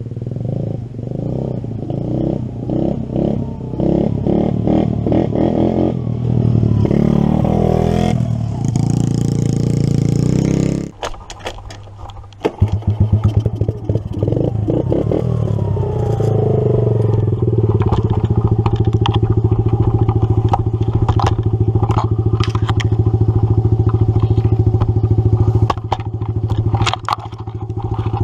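Kawasaki KLT 110 three-wheeler's small single-cylinder four-stroke engine running as it is ridden, revving up and down. The engine drops away sharply about eleven seconds in, then comes back and rises, running steadily to the end with clattering and rattling over the rough ground.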